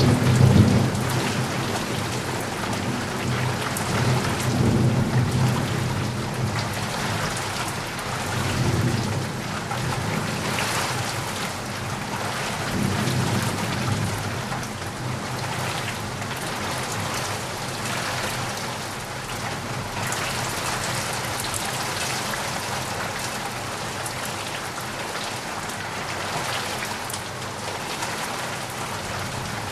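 Steady heavy rain falling, with low rolling thunder that rumbles several times in the first half and dies away, leaving only the even hiss of the rain.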